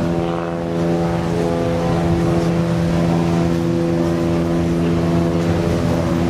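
A motor engine running steadily, holding one even pitch throughout.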